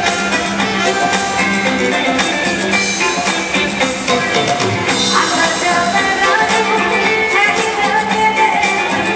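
Live pop band with electric guitars, drums and keyboards playing a song, a woman singing along.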